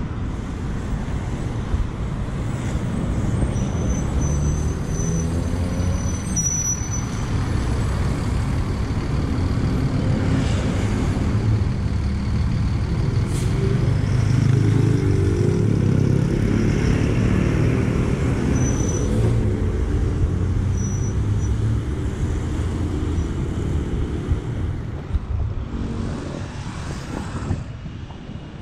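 City bus engine running as the bus pulls in, its note rising and falling and loudest about halfway through, over passing traffic.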